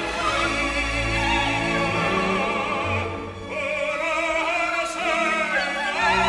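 Operatic singing with orchestral accompaniment: a sung voice with a wide vibrato over sustained orchestral notes, easing off briefly a little past the middle.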